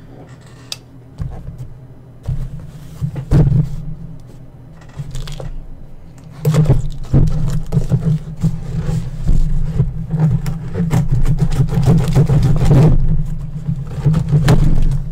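Cardboard shipping box being cut open with a knife and handled on a desk: irregular scraping, rubbing and knocks on the cardboard, sparse at first and getting busier and louder from about six seconds in.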